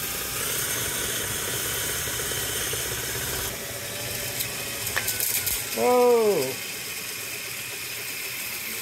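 Hand-cranked 3D-printed plastic filament rewinding machine turning steadily, its spools and crank giving a continuous mechanical rattle as filament is wound from the unscrewed master spool onto a new spool. A short voice-like sound that rises then falls comes about six seconds in.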